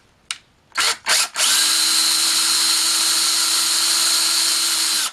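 Electric drill driving a screw: two short blips on the trigger, then a steady run of about three and a half seconds at constant speed that stops abruptly once the screw is seated tight.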